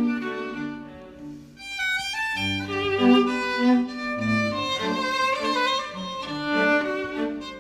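Background music of bowed strings: a violin melody over lower string notes, dipping briefly about a second and a half in before picking up again.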